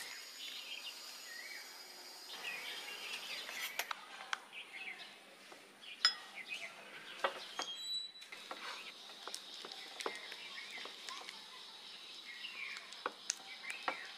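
Faint bird chirping throughout, with scattered light clicks and taps.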